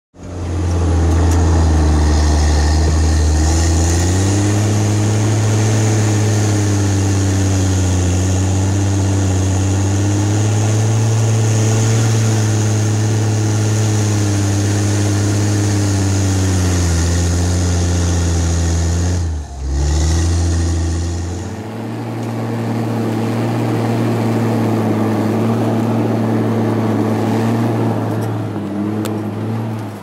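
Forestry skidder's diesel engine running hard under load while dragging a heavy disc harrow. Its pitch rises about four seconds in and sags again later, with a brief break about two-thirds of the way through.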